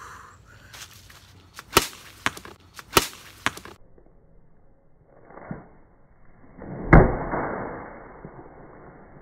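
A shaken, unopened can of Coca-Cola slammed onto an asphalt driveway: a loud bang about seven seconds in as it hits and bursts, then a hiss of spraying soda fading over a couple of seconds. A few sharp knocks come before it.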